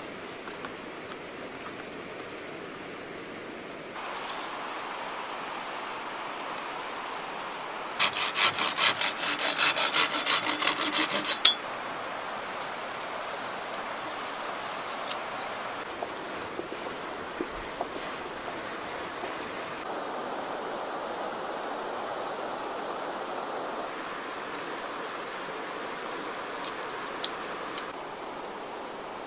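Outdoor ambience of a flowing river with a thin steady high insect whine, broken about a third of the way in by some three and a half seconds of quick rhythmic rasping strokes, about three a second.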